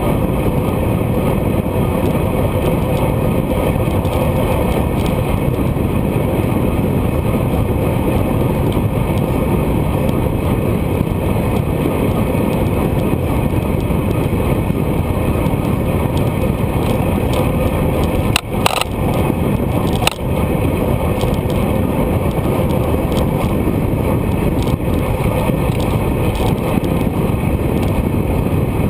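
Steady, loud wind noise on a GoPro's microphone while riding a road bike at race speed. Two sharp clicks about a second and a half apart come about two-thirds of the way through.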